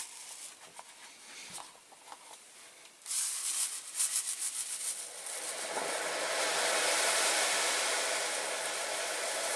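Caustic soda dissolving in a hot-water bath, fizzing and hissing as it starts to react with the paint on diecast metal parts. The fizz starts suddenly about three seconds in, crackly at first, then settles into a steady hiss.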